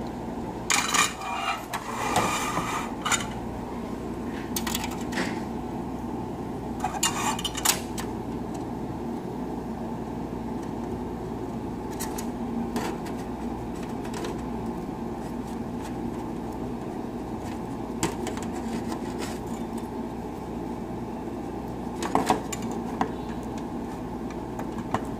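Handling noises of a small circuit board on a finned aluminium heatsink: scattered light clicks and clinks, in a cluster about a second in, again around seven seconds in and near the end, over a steady low hum.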